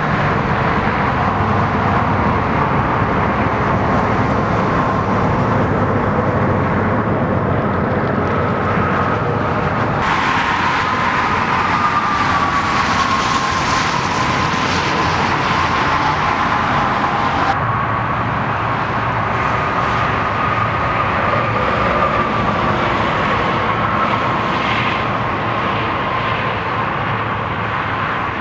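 Steady motor-vehicle noise with a faint wavering whine running through it, like passing traffic and idling engines.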